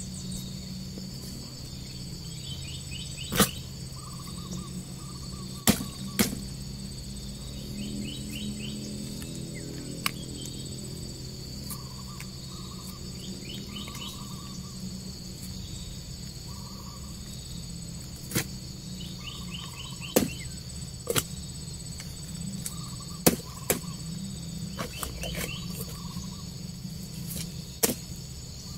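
Insects droning steadily with birds chirping in short repeated calls, over a low steady hum. About ten sharp knocks and snaps stand out now and then as cassava roots are handled, broken and dropped into a woven basket.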